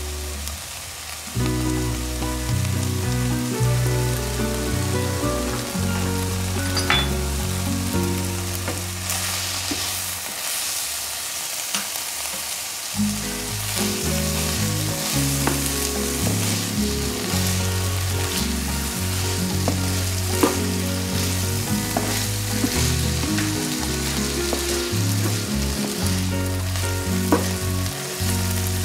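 Minced beef sizzling as it fries in a nonstick pan, stirred and scraped with a wooden spatula that gives off small knocks; the sizzle grows denser about nine seconds in. Background music with low notes plays underneath.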